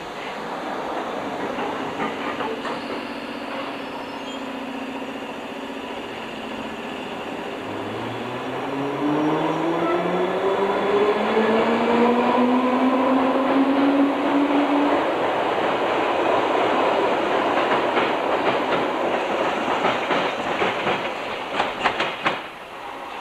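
London Underground D Stock electric train pulling out of a station: the traction motor whine rises steadily in pitch as it accelerates, then the wheels clatter over the rail joints as the cars pass. The sound cuts off abruptly near the end.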